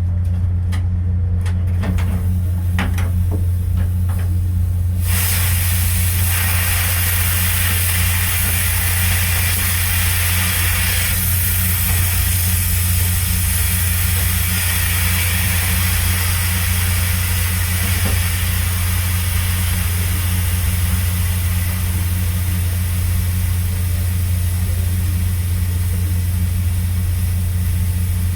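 A steady low mechanical hum, with a few light clicks at first, then a loud steady hiss that starts about five seconds in and keeps going.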